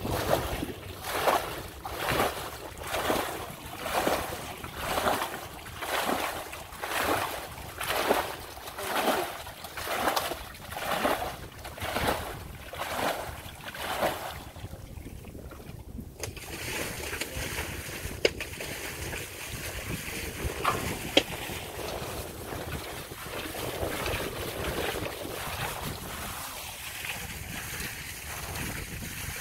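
Water being bailed out of a muddy pool with a metal bowl and flung aside, a splash with each scoop in a steady rhythm of a little more than one a second. After about fourteen seconds the bailing stops and a steady hiss follows, with a few small clicks.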